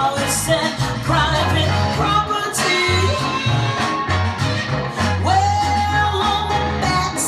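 Recorded music with singing, bass and drums played over loudspeakers driven by a Dynaco ST-70 tube power amplifier, as a listening demonstration of the amp.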